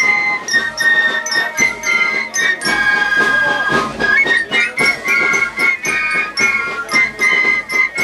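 A fife band playing a tune on high transverse flutes, with a bell lyra and a steady beat.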